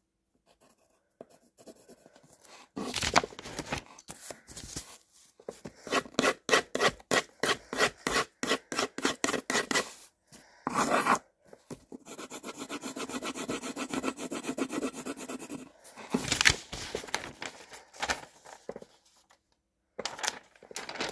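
Pencil shading on paper: runs of quick back-and-forth scratchy strokes, about four a second, with a denser, steadier stretch of scribbling in the middle.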